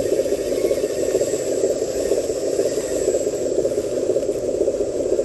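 Small electric motor whirring steadily as a homemade RC dump truck's tipper raises its loaded bed, with a light rattle.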